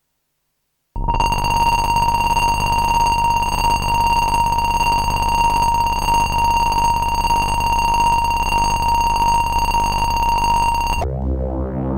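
Dreadbox Typhon analog monosynth preset: a loud, steady, alarm-like high tone with buzzy overtones over a pulsing low rumble. It comes in about a second in and cuts off sharply near the end, where a different, busier patch begins.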